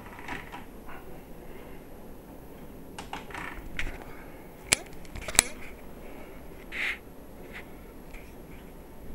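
VCR mechanism running a head-cleaning cassette, giving scattered mechanical clicks over a soft steady hiss, with two sharp clicks about five seconds in.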